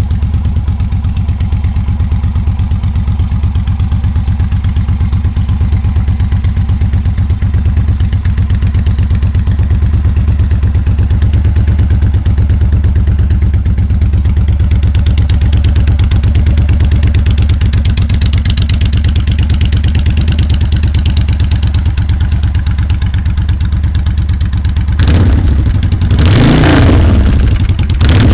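Cruiser motorcycle engine running through Cobra drag pipes, idling steadily, then revved up and back down near the end.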